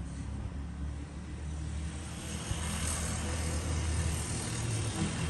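A motor vehicle's engine hum with a rushing noise that swells about two to three seconds in, like a vehicle passing.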